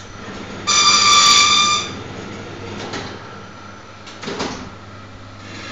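Auto-clamp mini perfect binding machine running with a steady low hum. Its buzzer beeps once for about a second near the start, and there is a short clack about four seconds in.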